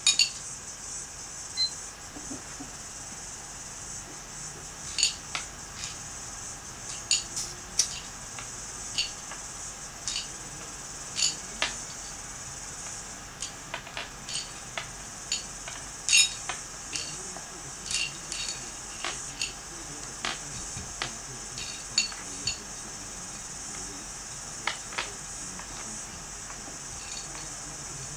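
M&M pretzel candies clicking against a ceramic plate as they are picked out one at a time, with small taps as they are set down on a tabletop. The clicks come irregularly, several a second at times, over a steady high hiss.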